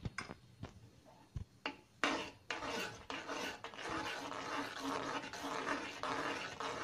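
Metal ladle stirring and scraping thick, hot cornflour halwa around a metal pan. A few light knocks come in the first two seconds, then steady scraping from about two seconds in. The constant stirring works in freshly added ghee and keeps the thickening halwa from sticking to the bottom of the pan.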